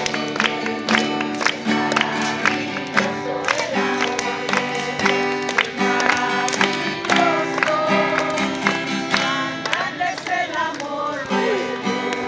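Acoustic guitar strummed in a steady rhythm, with a voice singing along faintly in places.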